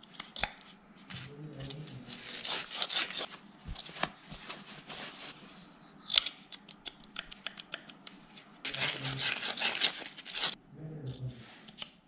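Dry metal scraping, rasping and clicking as a mixer-grinder motor's end bracket is twisted back and forth on its rusted armature shaft to work the jammed bush free. There are two longer rasping stretches, one a couple of seconds in and one past the middle.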